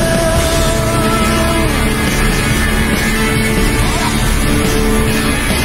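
Rock music soundtrack, a full band sound with a long held note in the first couple of seconds.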